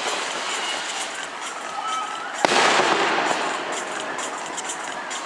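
Fireworks display: a steady crackle and hiss of bursting shells, then one loud bang about two and a half seconds in that fades away over the next second or two.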